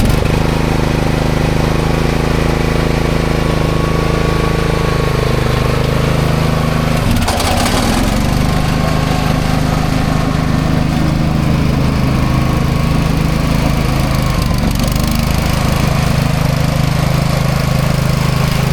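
Cox Stockman ride-on mower's engine running steadily, freshly started on its electric start. About seven seconds in there is a brief disturbance and its pitch shifts.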